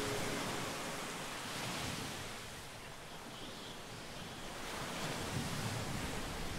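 Ocean waves washing in, an even rushing surf that eases off midway and swells again near the end, as the last notes of the music die away at the start.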